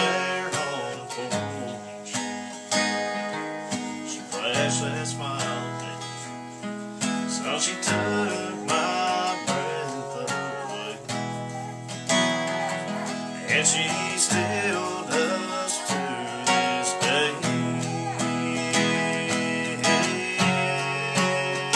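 Background music: a country-style song led by strummed acoustic guitar, with no clear lyrics in this stretch.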